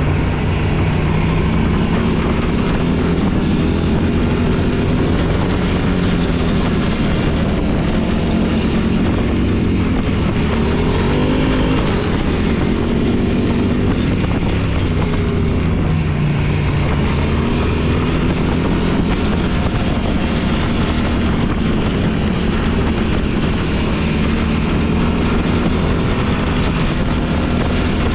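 Off-road vehicle's engine running while under way, its pitch rising and falling as the throttle changes, with steady rushing noise over the microphone.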